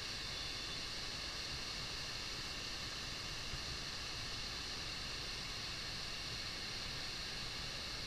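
Waterfalls rushing steadily, an even hiss of falling water.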